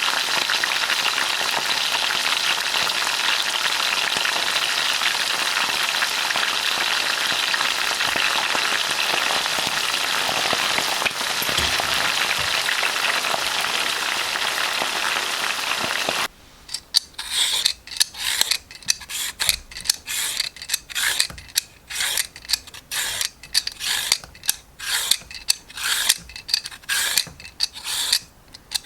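Food frying in hot oil, a steady sizzle that stops abruptly about 16 s in. Then a vegetable is peeled in quick, repeated scraping strokes, two or three a second.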